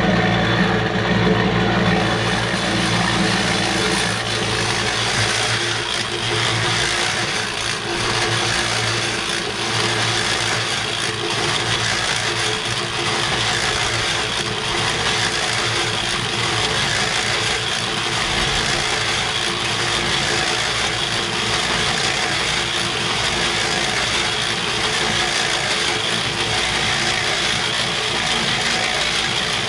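Small electric cement mixer running, its turning drum and gear drive making a steady mechanical rattle, while waxed dirt pours out of the tipped drum into a plastic bucket with a continuous rush. A low hum is stronger for the first few seconds, then fades.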